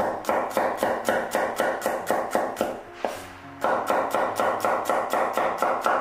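Chinese cleaver slicing garlic cloves on a wooden cutting board: quick, even knocks of the blade on the board, about four a second, with a short pause about three seconds in.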